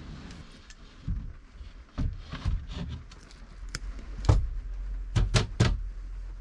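Irregular knocks and thuds of wooden panels being handled and fitted, ending in three sharp knocks in quick succession about five seconds in.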